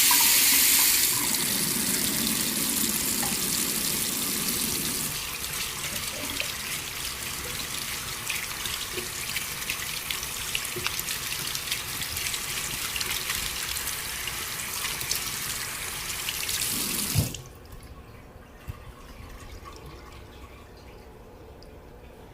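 Bathroom sink tap running while hands are washed under the stream. About seventeen seconds in the water shuts off sharply with a brief knock, leaving only faint drips and draining.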